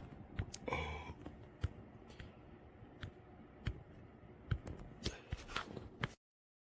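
Handling noise: scattered light clicks and knocks with a short rustle about a second in, then the sound cuts off abruptly just after six seconds.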